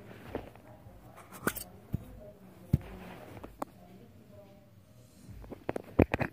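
Sharp clicks and taps from a small metal putty tin being opened and handled, with a quick run of louder clicks near the end.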